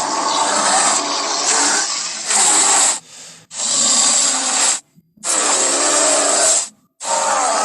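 Film creature sound effect of a giant albino gorilla: a series of long, rough, breathy growls, broken by short pauses about three, five and seven seconds in.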